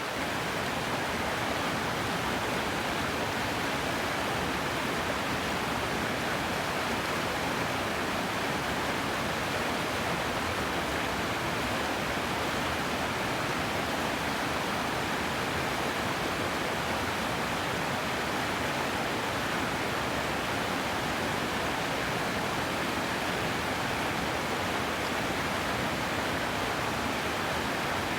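River water rushing and churning, a steady, even roar of flowing water.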